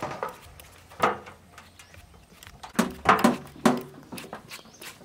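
Knives cutting and shaving the husk off young coconuts. There is a sharp stroke about a second in, then a quick run of four strokes around three seconds in.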